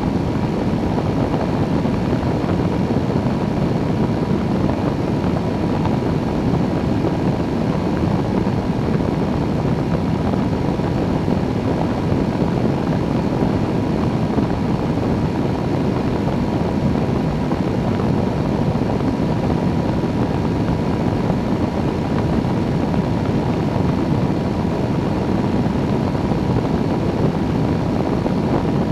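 Microlight trike in level cruise: its engine and pusher propeller drone steadily under rushing airflow on the wing-mounted camera, with no change in power.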